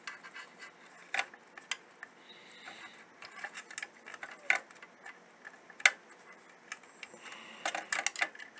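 Scattered small clicks and taps of hand-turned screws and a plastic RGB light strip being worked loose from an acrylic GPU water block, with a quick flurry of clicks near the end.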